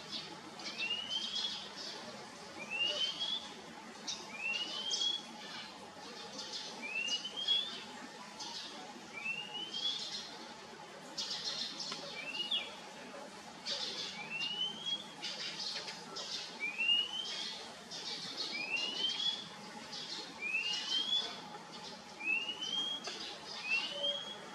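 Oriental magpie-robin calling: a short rising whistle repeated about every one and a half seconds, with short scratchy notes in between.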